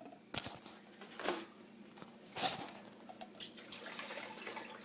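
Faint dribbling of liquid with a few light knocks, about a second and two and a half seconds in.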